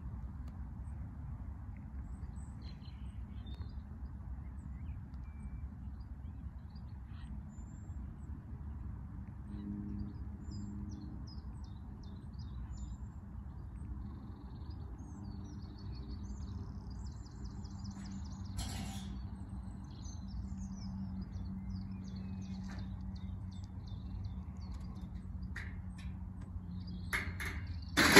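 Birds chirping over a low steady rumble. About ten seconds in, the level crossing's warning alarm starts as a steady low tone, sounding with the flashing road lights. Near the end comes a sudden loud metallic clank as the manual gate is swung shut across the road.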